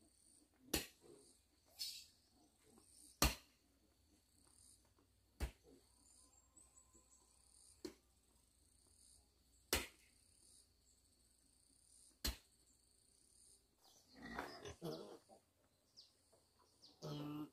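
Single sharp knocks, about one every two to two and a half seconds, over a faint steady high-pitched drone, with some rustling near the end.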